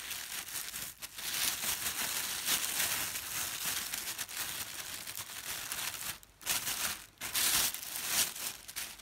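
Thin plastic carrier bag crinkling and rustling as hands untie its knotted handles and pull it open. The crinkling is continuous, with brief pauses about six and seven seconds in.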